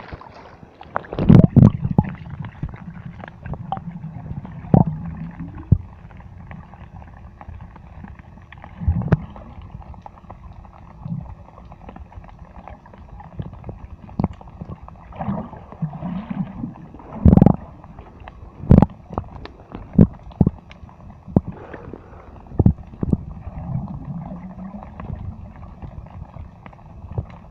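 Muffled sea water gurgling and sloshing, broken by irregular knocks and thumps.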